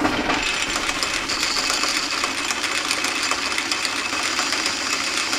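Flat-belt-driven metal lathe coming up to speed and running steadily while the cutting tool turns down a piece of steel to diameter. A high steady whine joins the machine noise about a second in.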